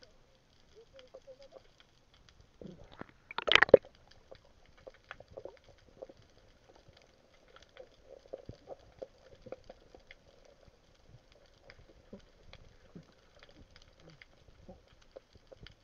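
Underwater ambience through a submerged camera: many scattered faint clicks and crackles over a faint steady hum, with one loud rushing burst about three and a half seconds in.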